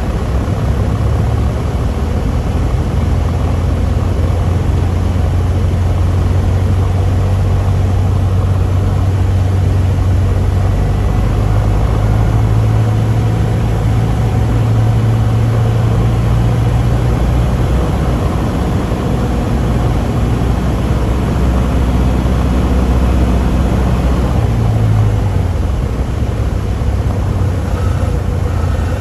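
Cessna 150's Continental O-200 four-cylinder engine and propeller droning steadily, heard inside the cabin with airflow noise, on final approach. Near the end the engine note wavers and drops as the throttle is brought back over the runway for landing.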